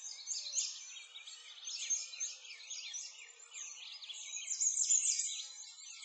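A dense chorus of many small birds chirping and twittering in quick, high-pitched rising and falling notes, overlapping without a break.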